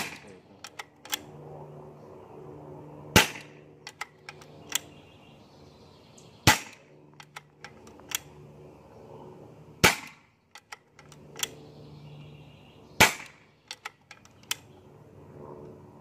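A regulated .22 EDgun Lelya 2.0 PCP air rifle fired shot after shot through a magazine: five sharp cracks about three seconds apart, with lighter clicks in between.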